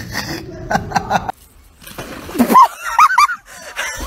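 A quick run of short, high animal calls, each rising and falling in pitch, loudest just past the middle. Before them comes about a second of noisy sound with a few knocks that cuts off suddenly.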